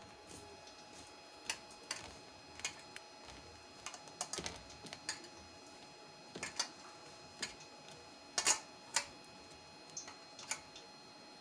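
Irregular light clicks and taps of a hand working in a steel bowl of flour, dredging marinated chicken. There are about a dozen sharp ticks, with a quick cluster about four seconds in and two louder ones around eight and nine seconds.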